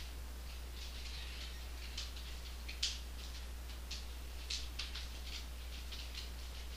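Small fishing boat under way: a steady low rumble with irregular light clicks and ticks, the sharpest about three seconds in.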